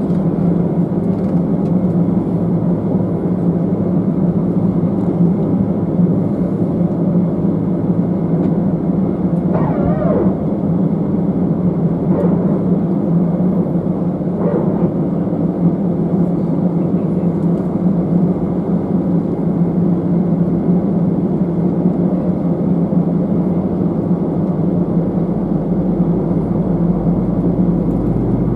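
Steady cabin noise inside an Airbus A319-111 airliner: the drone of its CFM56 engines and airflow. A few brief falling sweeps are heard around the middle, and a deeper hum joins near the end.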